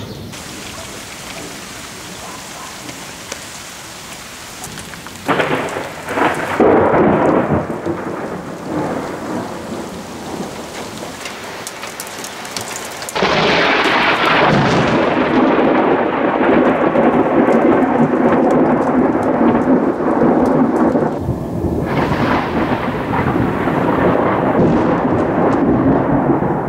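Thunderstorm: a steady hiss of rain, then a thunderclap about five seconds in that rolls on for several seconds and fades. From about halfway there is a long, loud stretch of rolling thunder over rain, with a brief dip before it swells again.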